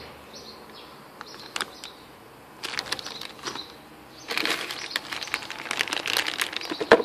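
Clear plastic bags holding computer cables crinkling as they are handled and lifted from a cardboard box: a few separate crackles at first, then steady rustling in the second half, ending on one sharp crackle.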